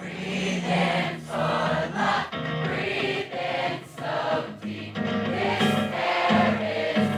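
Live acoustic guitar strummed while many voices sing the song together in chorus, a crowd singing along with the performer.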